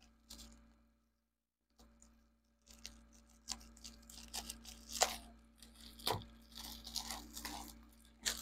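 Plastic parcel packaging being torn open by hand: irregular crinkling and ripping, with the sharpest rips about five seconds in and again at the very end.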